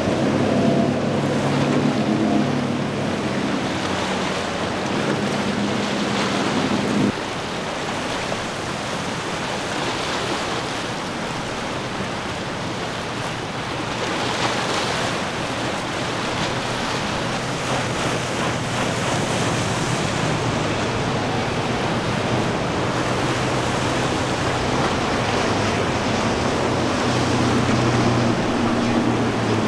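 Outboard motors of center-console boats running at speed through choppy water, mixed with breaking waves and wind on the microphone. The engine hum cuts off abruptly about seven seconds in, leaving mostly surf and wind, and comes back in the second half as another boat passes.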